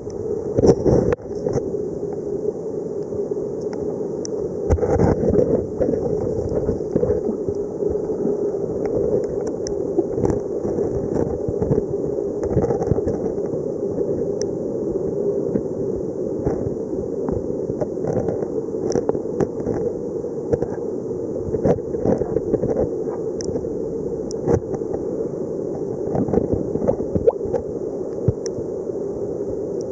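Muffled underwater ambience: a steady low water rush with many irregular sharp clicks and crackles throughout, the crackle typical of snapping shrimp.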